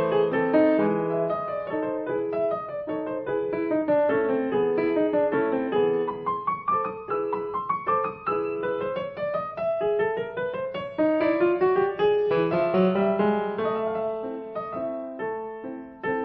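Piano music: runs of notes rising and falling over a held bass.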